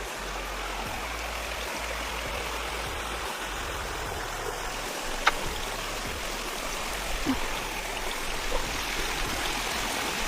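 Steady rushing of a stream, with a single sharp click about five seconds in.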